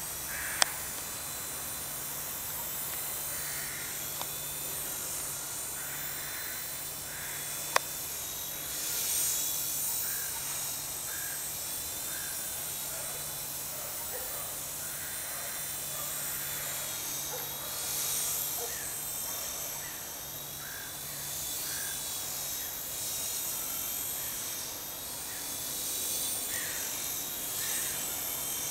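Home-made sub-micro collective-pitch RC helicopter in flight: a high electric motor and rotor whine that swells and fades as it moves about. Two sharp clicks sound, one about half a second in and one about eight seconds in.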